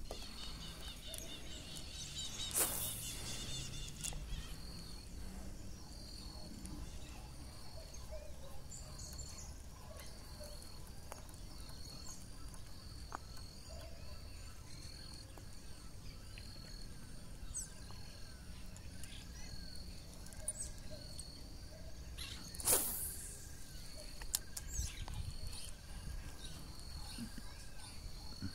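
Evening lakeside ambience: insects keep up a steady high pulsing trill, and an animal gives a short repeated call over and over, a bit more than once a second. Two brief knocks stand out, about three seconds in and again near the end.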